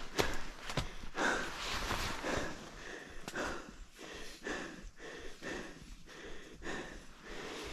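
A hiker breathing hard on a steep climb, in quick, even breaths about every half second, with a few footsteps on the trail.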